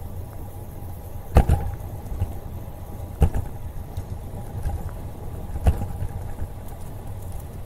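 Wind rumble on the microphone and tyre noise of a bicycle riding along an asphalt trail, with three sharp knocks: about a second and a half in, about three seconds in, and near six seconds.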